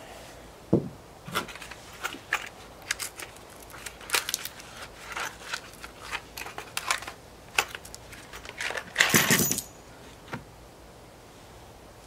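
Small metal latch hardware and screws clinking and rattling as they are handled and spilled out, a series of short irregular clicks with a louder rattle about nine seconds in.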